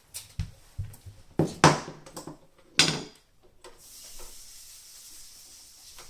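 A series of wooden knocks and clatters, about five of them in the first three seconds, the loudest about one and a half seconds in, followed by a faint steady hiss.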